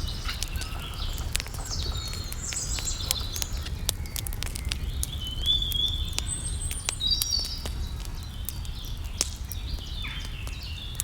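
Birds chirping, short high calls and trills scattered through, over a steady low rumble with many sharp clicks.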